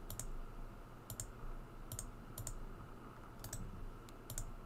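Faint, sharp clicks of a computer mouse button, about six of them spread out, each a quick press-and-release pair, as menu items are picked.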